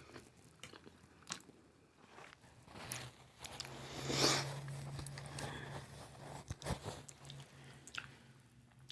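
Close-miked eating of spaghetti in Alfredo sauce: wet chewing with scattered mouth clicks and smacks, and one louder, noisier mouth sound about four seconds in.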